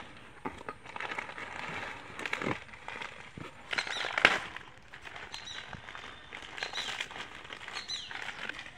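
Plastic noodle packets crinkling and rustling as they are lifted from a cardboard box and handled, in irregular bursts with a sharp crackle about four seconds in.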